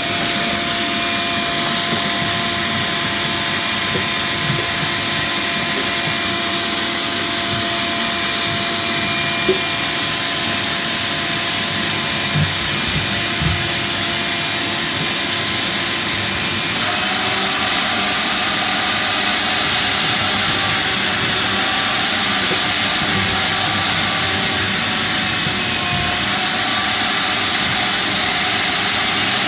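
Loud, steady machinery running: a continuous rushing hum with several steady tones. About halfway through it steps up louder, and its tones jump higher and waver slightly. A few faint knocks sound before the change.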